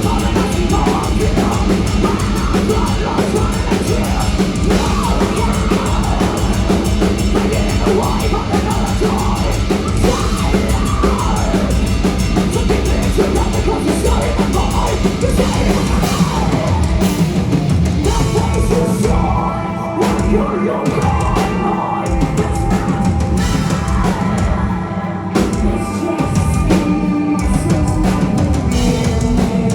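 Metal band playing loudly, with a heavy drum kit driving it and singing at times.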